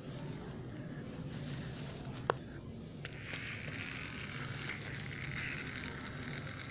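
Gloved hands handling plastic toy train cars in a cardboard box: one sharp click a little over two seconds in, then steady rustling and scraping from about three seconds in, over a low hum.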